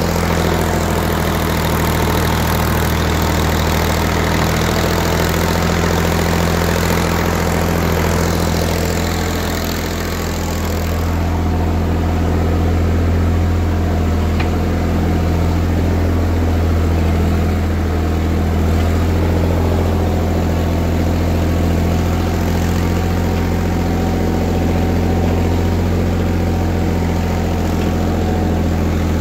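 Ford 3000 tractor's three-cylinder engine running steadily, a constant low drone with a slight dip about ten seconds in.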